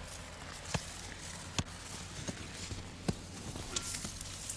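Hammer striking a rock face: sharp single knocks at irregular intervals of about a second, with fainter taps between them.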